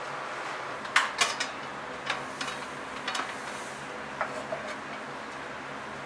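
Handling of a large stainless steel rice warmer: a run of sharp clicks and knocks as its lid is opened and the rice paddle is taken from its cup, the loudest about a second in. A steady low hum runs underneath.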